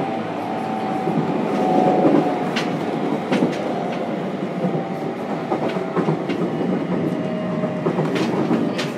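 Running noise inside the motor car of a JR Kyushu 303 series electric train: a steady rumble of wheels and motors, with sharp clicks of the wheels over rail joints now and then. A faint motor whine drifts slowly down in pitch.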